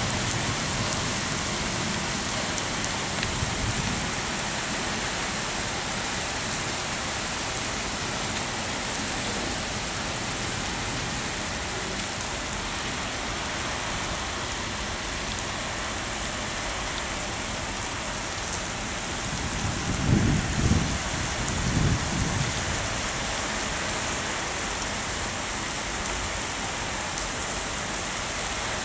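Heavy cyclone rain falling steadily as a dense, even hiss, with a few short low rumbles about two-thirds of the way through.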